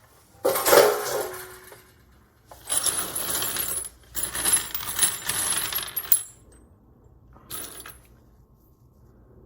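A pile of spent brass cartridge cases clinking and rattling against each other as they are handled, in three long stretches and one short rattle near the end.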